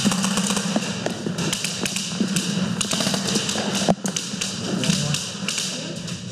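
Airsoft guns firing in scattered bursts: many sharp clicks and taps close together, over a steady low hum.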